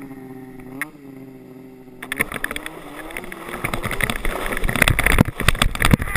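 Snowmobile engine running steadily, then revving as it takes up the tow rope. From about two seconds in, a plastic sled scraping and rattling over icy snow takes over, growing louder as the sled picks up speed.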